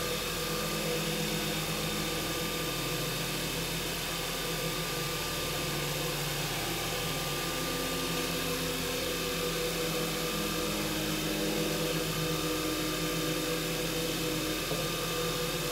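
Pen-turning lathe running steadily, a constant motor hum with hiss, while the spinning pen blank is sanded with abrasive paper.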